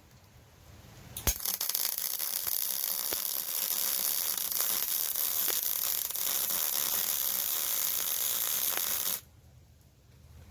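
MIG welding arc crackling steadily for about eight seconds, starting about a second in and cutting off sharply near the end. It is a Yeswelder MIG-Pro250 running .035 wire at 20.5 volts on 5/16-inch steel plate.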